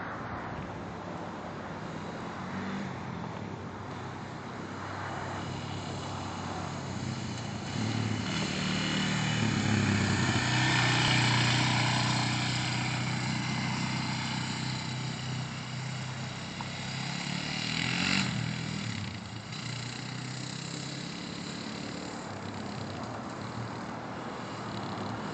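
Quad (ATV) engine running as it is ridden across a grass field, growing louder to a peak about halfway through as it comes close, then fading, with a brief surge about three quarters of the way in.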